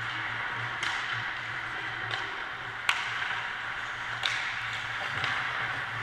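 Ice hockey game heard from beside the goal: a steady wash of skates on the ice, with about five sharp clacks of sticks and puck scattered through, over a steady low hum.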